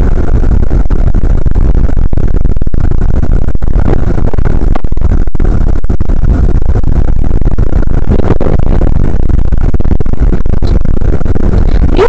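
Steady, loud road noise of a car driving on a slushy, icy road: engine and tyres heard from inside the cabin through a dash camera's overloaded microphone, so the sound is harsh and distorted.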